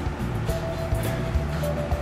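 Background music with a steady beat and bass line; a held note comes in about half a second in.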